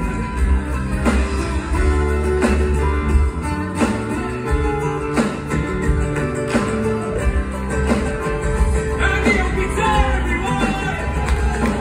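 A live band playing on stage, with strummed guitars, a strong beat about every second and a third, and singing that comes to the fore near the end, heard from the audience in a theatre hall.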